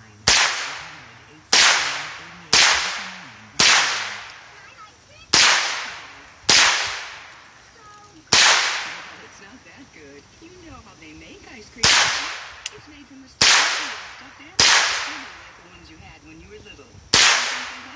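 Smith & Wesson M&P AR-15-style semi-automatic .22 LR rifle firing eleven single shots, roughly one every second or two, with a longer pause of about three and a half seconds midway. Each sharp crack dies away over about a second.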